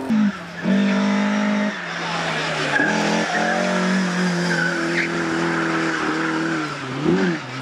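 Rally car engine revving hard and changing revs through a corner, with tyres skidding; a quick rev blip rises and falls near the end.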